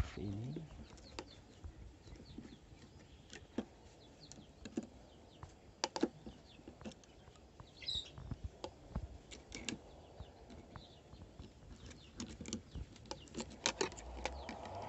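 Irregular small clicks and ticks of steel binding wire being twisted with pliers and worked tight around a wooden post, more frequent near the end.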